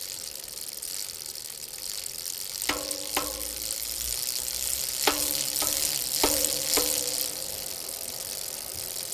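Bicycle freewheel hub ratcheting in a fast, steady buzz as the wheel coasts. Sharp clicks that ring briefly come in three pairs, each about half a second apart, a few seconds into the sound.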